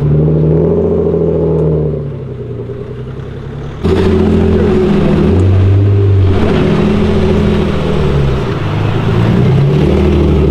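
Nissan Silvia S14 engine revving and accelerating as the car pulls away, its pitch rising and falling. The sound drops back briefly and then comes in suddenly louder about four seconds in.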